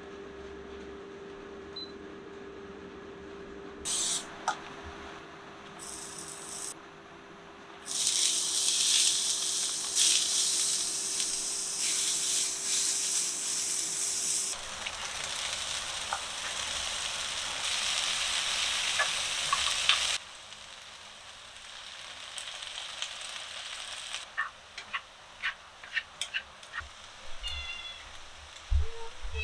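Chopped vegetables sizzling in oil in a frying pan. The sizzle turns loud about eight seconds in and drops back around twenty seconds. A steady hum runs under the first half, and scattered pops and clicks come near the end.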